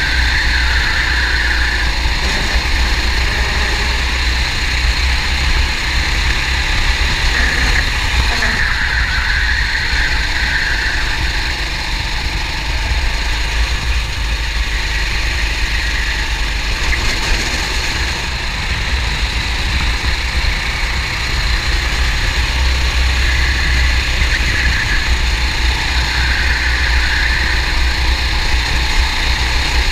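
Kart engine running hard at racing speed, heard from the camera mounted on the kart. The engine note eases off briefly a couple of times and picks up again.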